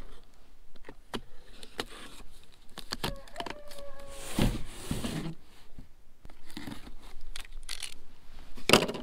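Knife blade slitting packing tape on a cardboard box: scattered scrapes and clicks as the blade drags along the tape, with a short squeak about three seconds in. A louder cardboard rustle near the end as the box is handled.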